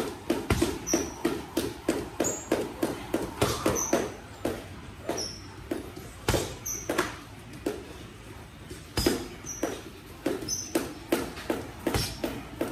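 Boxing gloves, 16-ounce, punching a tall hanging heavy bag in fast combinations: a rapid series of thuds, about three or four a second, broken by a couple of short lulls, with brief high squeaks between the punches.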